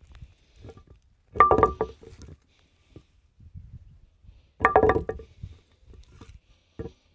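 A Qubica AMF Amflite 2 bowling pin struck twice, each time a quick run of knocks followed by a short ring of several clear pitches. The clear ring marks a pin still in good shape.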